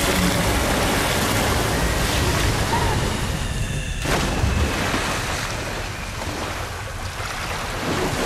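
Film sound of rushing, churning water filling a stone well: a steady hissing wash, with a sudden hit about four seconds in.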